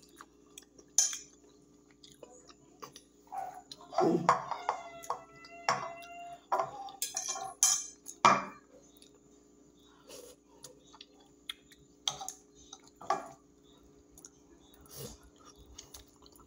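Metal fork clinking and scraping on a glass plate in scattered sharp clicks, with chewing in between.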